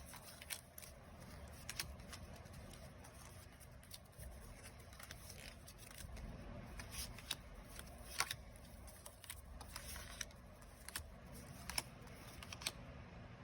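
Faint handling of paper savings-challenge cards: scattered soft clicks and rustles as the cards are flipped through and sorted.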